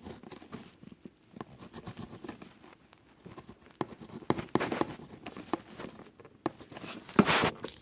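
Irregular clicks, taps and rustles of objects being handled close to the microphone, with a louder rustling scrape near the end.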